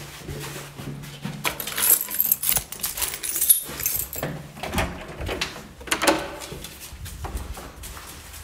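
Irregular jangling and clattering handling noises with a few sharp knocks, over a low steady hum in the first half.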